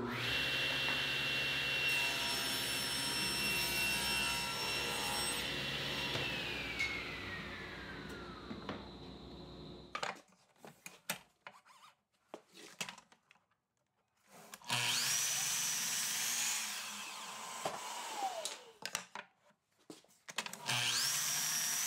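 SawStop table saw running and cutting a board, then its blade winding down with a falling whine. Later a sliding miter saw starts with a rising whine, makes a short cut and winds down, then starts up again near the end.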